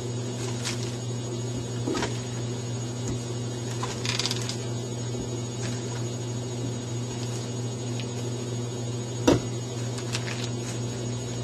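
A steady low electric hum, with a few faint clicks and one sharper knock about nine seconds in.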